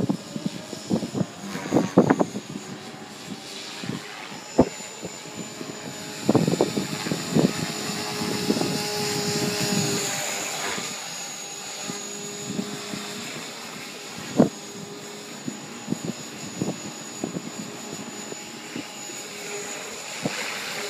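Align T-Rex 500 Pro electric RC helicopter in flight: a steady high motor whine with rotor blade noise that swells and fades as it manoeuvres. It is loudest from about six to eleven seconds in, with short loud bursts scattered throughout.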